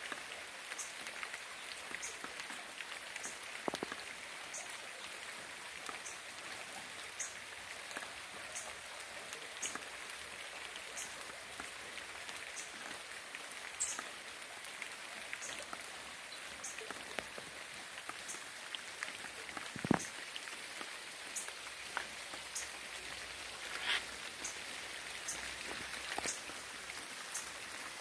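Steady rain falling, an even hiss with scattered individual drops striking close by, one louder drop about two-thirds of the way through.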